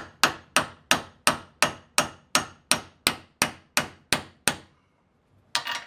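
Ball peen hammer striking a steel socket used as a drift, metal on metal, driving a worn bronze kingpin bushing out of a golf cart's front spindle held in a vise. About thirteen even blows, roughly three a second, each with a short ring; the hammering stops about four and a half seconds in, and a short noise follows near the end.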